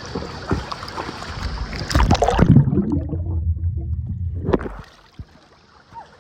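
Water splashing and rushing with a rough noisy hiss. About two seconds in comes a loud splash. The sound then goes muffled and low for about two seconds before dropping much quieter.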